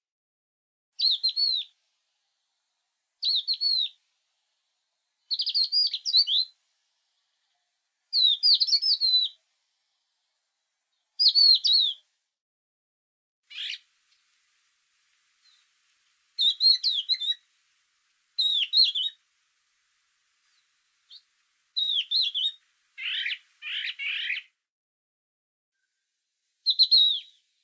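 A songbird singing short, high-pitched phrases of about a second each, repeated every two seconds or so with silence between. Near the end comes a lower, rougher call.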